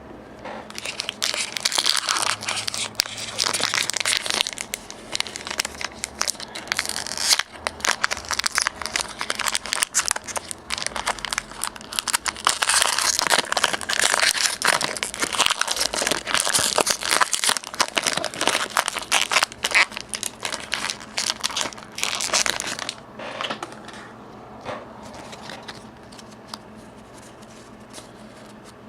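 Foil wrapper of a Pokémon trading card booster pack crinkling and tearing as it is opened and crumpled, for about twenty seconds. Near the end it gives way to quieter light rustles and clicks of the cards being handled.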